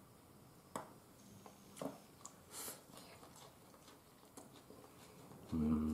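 Chopsticks clicking lightly against ceramic bowls and a plate while a man eats, a few scattered ticks. Near the end, a short, steady-pitched hummed 'mm' from the eater.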